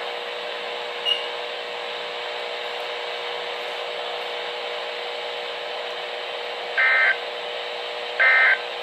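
NOAA Weather Radio broadcast: steady receiver hiss with a faint hum, then near the end two short bursts of buzzy digital data tones, about 1.4 s apart. These are the SAME end-of-message bursts that close the weekly test.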